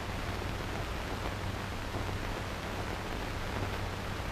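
Steady hiss with a low mains hum from an old 16mm film soundtrack transfer, with no other sound over it.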